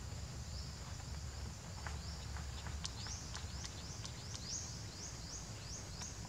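Outdoor ambience with a steady low rumble and a run of short, high, rising chirps from an unseen small animal, growing to about four a second from about halfway through.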